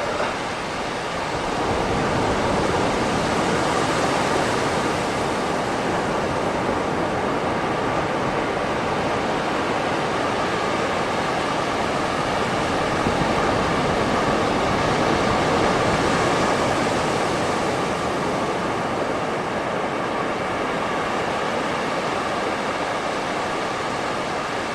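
Ocean waves washing onto a beach, a continuous rushing surf that swells gently about two seconds in and again around the middle.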